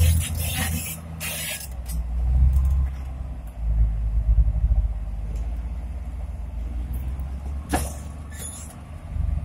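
Diesel engines of Komatsu crawler pipelayers running with a steady low rumble while they lift a welded two-pipe section. The rumble swells twice in the first half as the engines take the load. A short sharp squeal or hiss comes about three-quarters of the way through.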